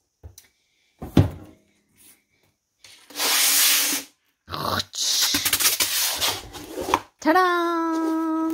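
A finished diamond painting being handled and drawn out of its storage box: a knock about a second in, then two long stretches of rubbing and scraping, followed by a drawn-out spoken "Tada!" near the end.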